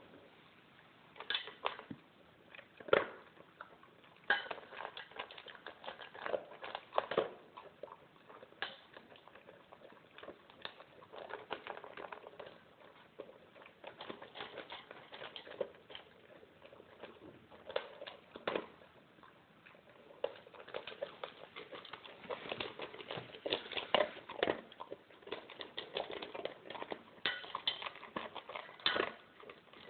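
Alaskan Malamute eating dry kibble from a stainless steel bowl: irregular crunching and chewing, with kibble and muzzle clinking against the metal bowl, in uneven clusters with a few louder clacks.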